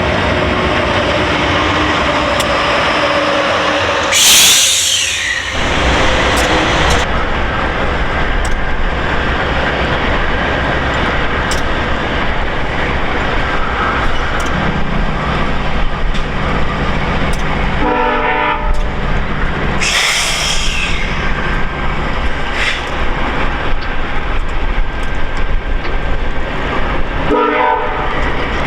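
VIA Rail passenger train running through a station: steady loud rumble and rail noise of locomotives and coaches, with wheel clatter over rail joints. Brief louder rushes come about four seconds in and again about twenty seconds in.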